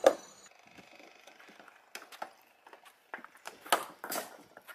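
Stone blocks knocking and clattering against each other as they are thrown onto a rubble pile. A sharp crack comes at the very start, then scattered knocks, with louder ones about three and a half and four seconds in.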